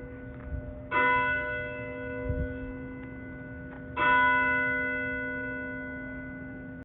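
A large church bell tolling: two strikes about three seconds apart, each ringing on with many overtones and slowly fading.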